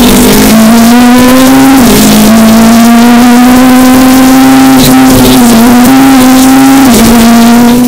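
Rally car engine running hard, heard from inside the cabin over road noise. Its steady high note dips briefly three times, about two seconds in, near five and a half seconds and near seven seconds, each time picking up again.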